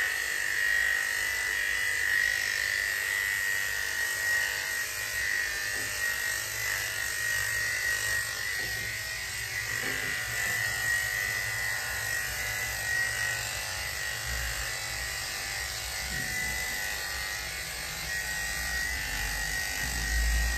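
Electric dog grooming clippers running steadily with a high hum as they shave down a terrier's coat.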